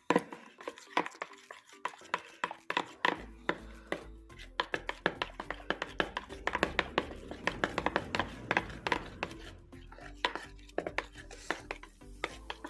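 Quick, irregular sharp taps and clicks, several a second, over a background music track.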